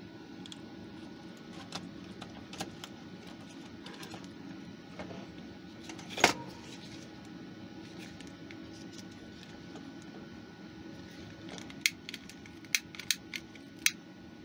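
Small clicks and taps from handling a small loudspeaker and its wires, with one louder knock about six seconds in, then a quick run of sharp clicks near the end as a lighter is clicked to light its flame for shrinking heat-shrink sleeving. A steady low hum runs underneath.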